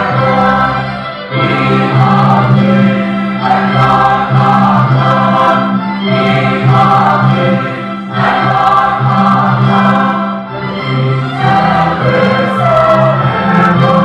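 Mixed church choir of women and men singing a hymn together, in phrases broken by short breaths about a second in, near eight seconds and again near ten and a half seconds.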